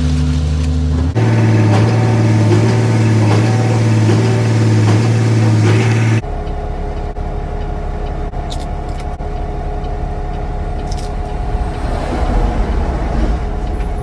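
Concrete mixer truck's diesel engine running at steady raised revs while concrete slides down the discharge chute, stepping up slightly about a second in. About six seconds in it changes abruptly to a lower, rougher idle rumble heard from inside the truck cab.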